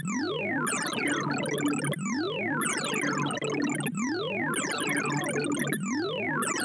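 ArrayV's synthesized sorting tones for Optimized Shove Sort on a 128-number array. Rapid short beeps, whose pitch follows the values being accessed, sweep down and back up in pitch over and over as elements are shoved along.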